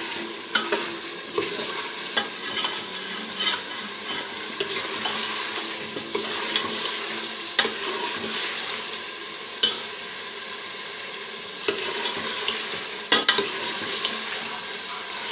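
Beef curry sizzling in oil in a pressure cooker pot while a metal ladle stirs and scrapes it during the bhuna (frying) stage. Sharp clicks of the ladle against the pot come every second or two.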